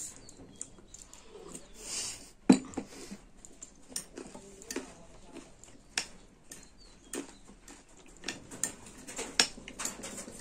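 Eating sounds: chewing and mouth smacking on wild olives (heiyai), with a metal spoon clicking against a glass bowl. The sounds come as scattered short clicks, the sharpest about two and a half seconds in.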